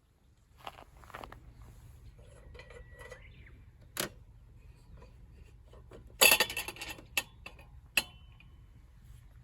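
Metal camp cookware and utensils clinking and clattering as they are handled, with a loud clatter about six seconds in and a short ringing clink near the end.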